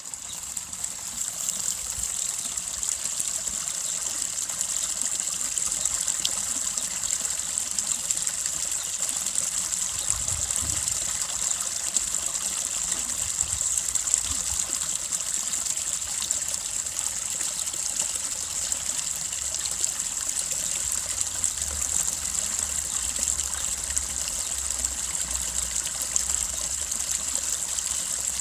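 A small brook babbling, its water trickling and splashing steadily. It fades in at the very start.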